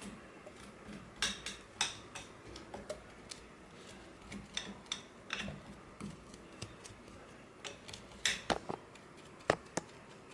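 Irregular light clicks and taps of hard parts and a tool being handled on a sewing machine during cleaning, the sharpest click about nine seconds in.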